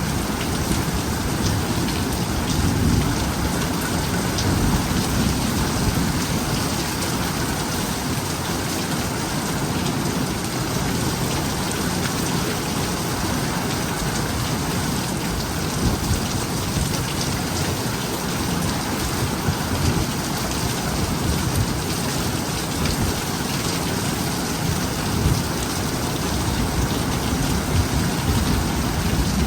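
Heavy rain pouring steadily in a thunderstorm, with a low rumble of thunder that is strongest in the first few seconds.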